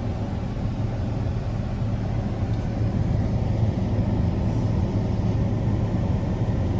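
Steady low drone of a road vehicle driving, engine and road noise with no change in pitch.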